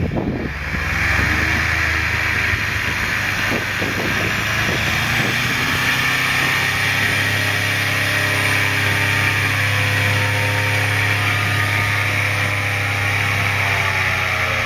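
Airboat's Subaru 2-litre turbocharged flat-four engine and rear air propeller running steadily at speed as the boat glides through an open-water channel in the ice; the pitch rises slightly near the end.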